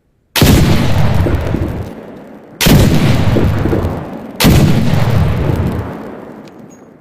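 Three shots from a blunderbuss flintlock pistol, a little over two seconds apart. Each is a sharp blast followed by a long, fading rumble.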